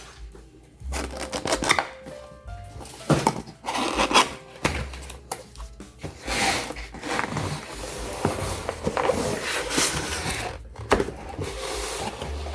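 Background music with held notes and a bass line, over rustling and sharp knocks of packaging being handled as a keyboard is unboxed.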